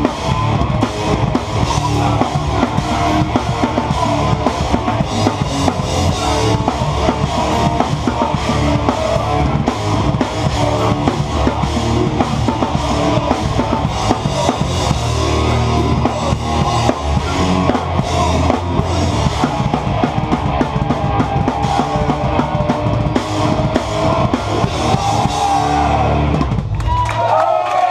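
Hardcore band playing live, with a close, loud drum kit of pounding kick drum and crashing cymbals over electric guitars and bass. The song ends abruptly about a second before the end, and the crowd starts shouting and cheering.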